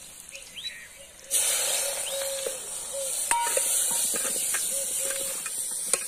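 Garlic frying in hot oil, a steady high sizzle that jumps suddenly louder about a second in. Birds chirp in the background and there are a few light clicks.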